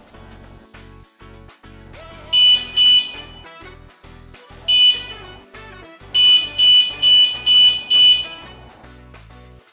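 Electronic bicycle alarm's piezo beeper sounding short, high-pitched beeps: two, then one, then five in quick succession, over background music.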